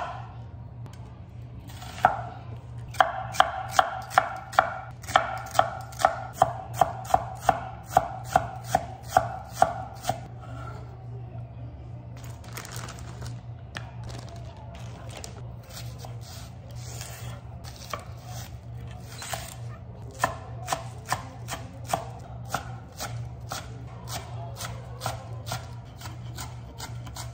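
Large kitchen knife chopping onion and long green onion on a wooden cutting board: a run of sharp knocks about two or three a second, a quieter stretch, then lighter, quicker chopping near the end.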